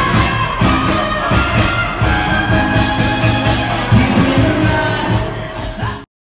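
Live band playing a song on electric and acoustic guitars over a steady beat. The sound cuts off abruptly just before the end.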